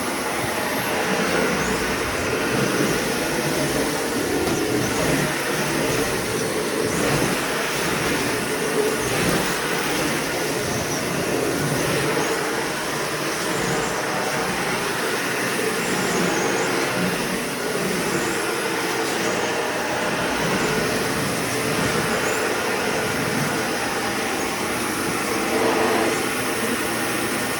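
Corded Shark vacuum cleaner running steadily while vacuuming, a continuous motor and airflow noise.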